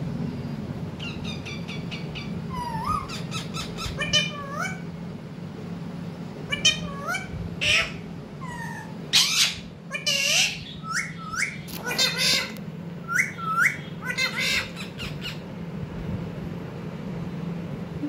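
Rose-ringed parakeets (Indian ringnecks) calling in a run of short squawks and chirps, many ending in a quick upward hook, with a few harsher squawks in the middle; the calls stop a few seconds before the end.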